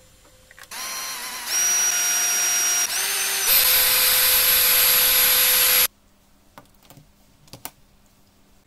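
Small electric drill whining as it bores a hole into a 3D-printed PLA case, its pitch stepping up a couple of times with a short dip before it stops abruptly about six seconds in. A few light clicks follow.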